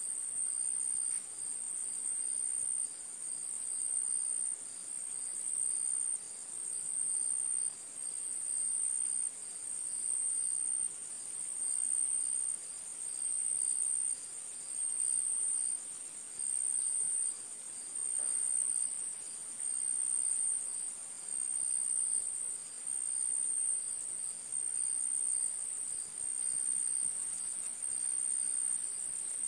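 Insect trilling at a steady high pitch, in phrases of about a second that repeat roughly every second and a half.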